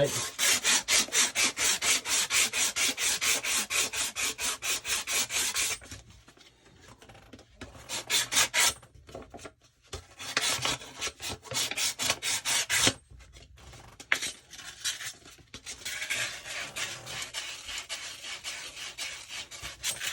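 400-grit sandpaper scrubbing back and forth on the cut end of a water pipe in quick strokes, about five a second, cleaning it for a push-fit fitting. After about six seconds the strokes come in shorter bursts with gaps between them.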